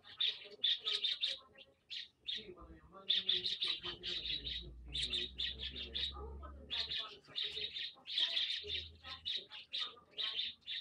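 Small birds chirping in quick, dense runs of short high chirps, broken by brief pauses.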